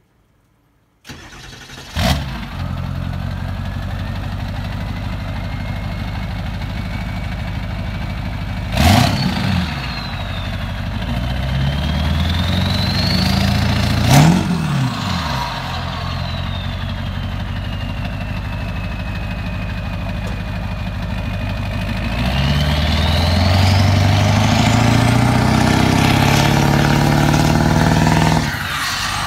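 Ford pickup's 7.3-litre Powerstroke V8 turbodiesel, which comes in abruptly about a second in and runs at a steady rumble. It is revved up several times, with a turbo whine that rises and falls with each rev. The last rev is held for about six seconds while it rolls coal, and a few sharp clicks fall along the way.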